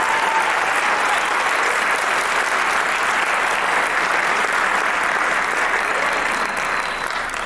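Audience applauding steadily at the end of a choir performance, dying down near the end.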